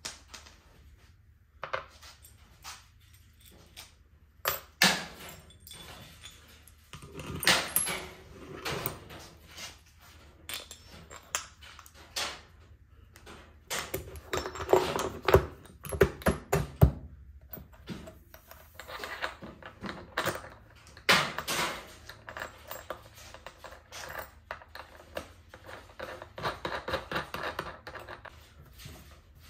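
Small metal hardware clinking and rattling in irregular bursts as a small wheel is fitted onto an axle bolt: washers and a nut knocking on the wooden frame and against the bolt, with the wheel's metal hub clicking on it.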